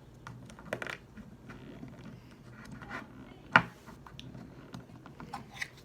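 Hands handling and pressing a plastic toy container and its packaging: scattered small clicks, taps and rubbing, with one sharper snap-like click about three and a half seconds in.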